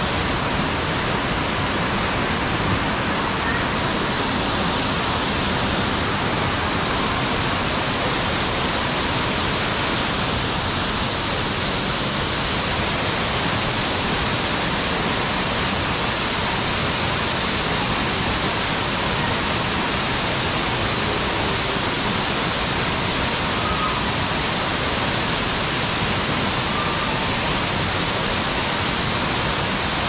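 Waterfall pouring, a steady, even rush of falling water.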